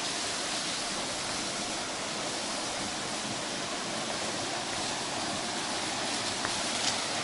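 Steady rush of flowing water, running even and unbroken.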